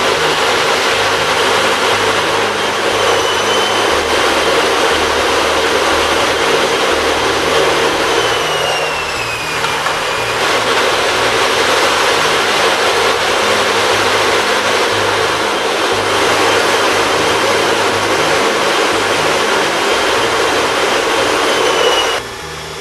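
Pratt & Whitney F119 afterburning turbofan running on a test stand: a loud, steady jet roar, with a faint high whine falling in pitch about nine seconds in. The roar cuts off suddenly near the end.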